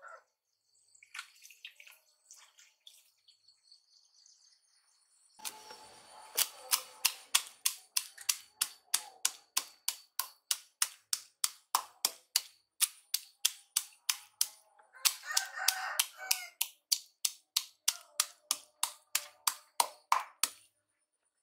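Faint bird chirps, then from about five seconds in a long run of sharp, evenly spaced knocks, about three a second, with a brief pause midway.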